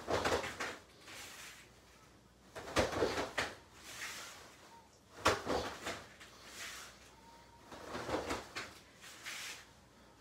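Two people doing fast karate front snap kicks barefoot on foam mats: a burst of fabric swish and snap with the thud of feet landing as each kick is pulled back and stepped into stance. It comes four times, about every two and a half seconds.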